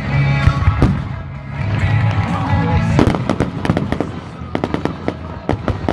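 Fireworks display: aerial shells bursting in a string of sharp bangs and crackles, growing into a rapid, dense volley about halfway through.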